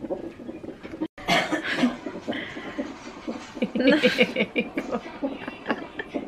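A woman laughing in short, breathy giggling bursts.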